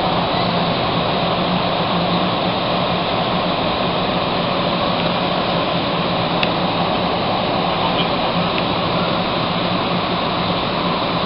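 Steady hiss and hum inside a Bombardier-Vickers MR-63 metro car standing at a station platform, the car's ventilation and equipment running, with a low steady drone underneath.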